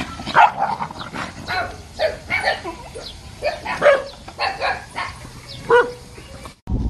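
A small dog barking and yelping in alarm at a stuffed toy tiger thrust at it, about a dozen sharp, high calls in quick succession. The sound stops abruptly near the end.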